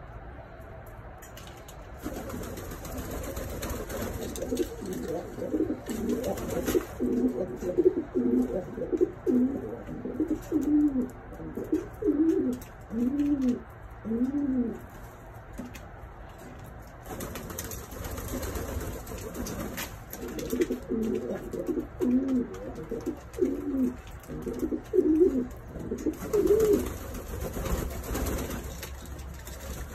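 Domestic pigeons cooing: two long bouts of repeated low, rising-and-falling coos with a pause of a couple of seconds between them.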